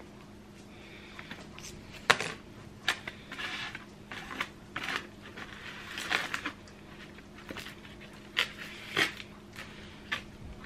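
Food being handled and cut up by hand: plastic bag rustling and a knife clicking and scraping on a plate in scattered short bursts, over a faint steady low hum.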